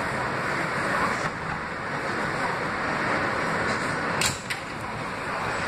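R160B subway train running as it rolls slowly along the station platform and slows to a stop, with a short sharp hiss about four seconds in.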